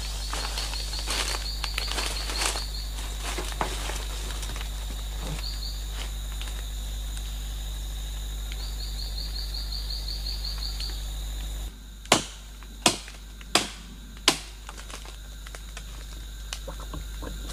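Forest insects trilling in short pulsed runs over a steady high insect drone, with some light rustling. About two-thirds in the background changes abruptly and four sharp chopping blows ring out, evenly spaced less than a second apart: a blade hacking into wood.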